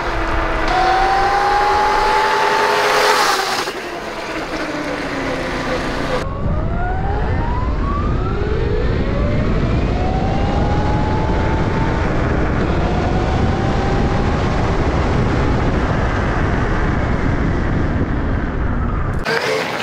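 The 12 kW electric motor and four-speed gearbox of an electric-converted Honda CRF450 dirt bike whining under acceleration, the pitch gliding up through the gears and falling away between them. For the first few seconds the bike approaches and passes, the whine rising and then dropping off. After about six seconds it is heard from on the bike, under heavy wind rumble on the camera.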